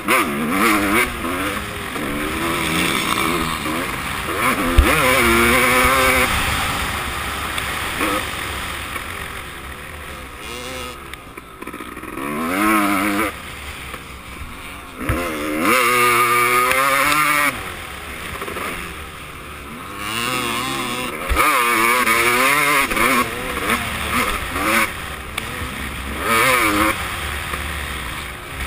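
Motocross dirt bike engine heard close up from the rider's helmet camera, revving up in loud surges every few seconds and falling back between them, with a rushing hiss over the microphone.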